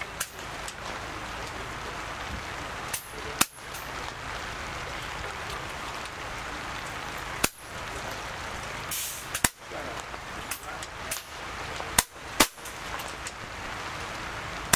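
Sharp cracks of PCP air rifles firing on a benchrest line: about five loud shots at uneven intervals, a couple of them only half a second apart, with a few fainter shots between them. A steady hiss of background noise runs under the shots.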